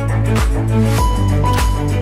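Background music with a steady beat and heavy bass; a new high held note comes in about a second in.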